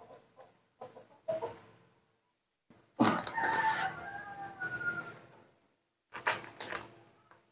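A rooster crowing: one long call, starting about three seconds in, with shorter bursts of sound before it and near the end.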